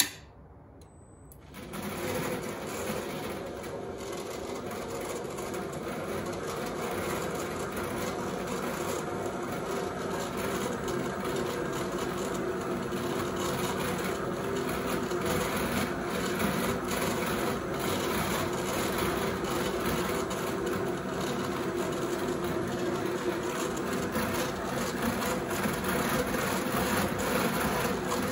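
A click, then about two seconds in the Brother continuous rover drum carder starts up under electric power. Its conveyor belt, chain drive and carding drums run steadily with a mechanical hum that grows slowly louder.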